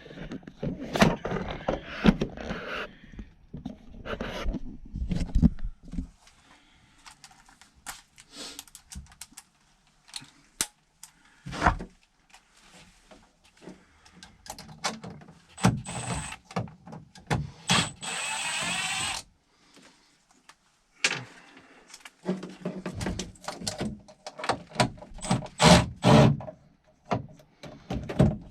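Tools and fittings clicking, knocking and rattling as a condensate drain line is reworked, with pauses between bursts of handling. Near the middle comes one steady noise lasting about a second and a half.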